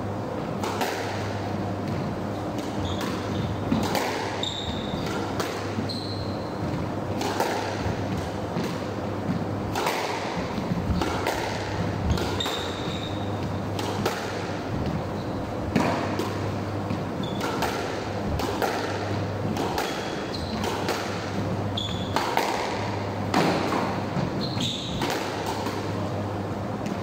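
A squash rally: the ball cracks off rackets and bangs off the walls about once a second, each hit echoing briefly in the enclosed court. Short high squeaks of shoes on the wooden floor come between the hits, over a steady low hum.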